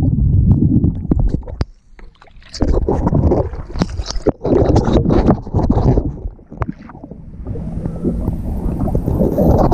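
Water sloshing and splashing around a GoPro camera housing as it rises from underwater to the surface, with many sharp knocks and a brief lull about two seconds in. About three-quarters of the way through it turns into a steadier hiss as the camera comes clear of the water.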